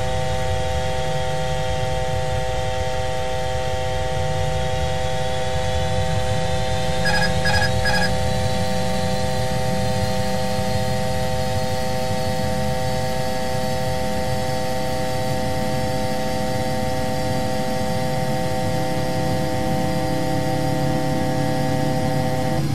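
Airbus A350 cockpit noise in the climb: a steady hum with several constant tones and a faint whine that slowly rises in pitch. Three short beeps sound in quick succession about seven seconds in.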